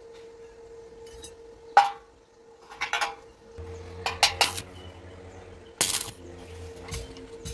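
Clinks of steel square tubing being set against each other, then a stick welder's arc struck about halfway through for a short tack weld: a few sharp crackles over a low electrical buzz that stops a little before the end.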